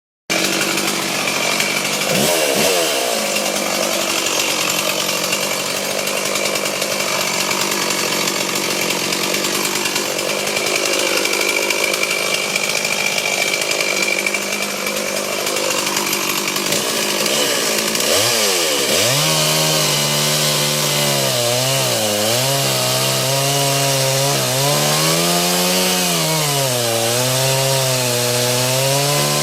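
Chainsaw running and cutting into a tree, its engine note swinging up and down. In the last third the engine note stands out clearly, sagging and recovering again and again as the chain works through the wood.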